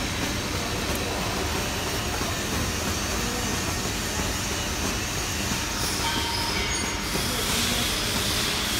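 Steady mechanical din of running machinery, with a brighter hiss rising near the end.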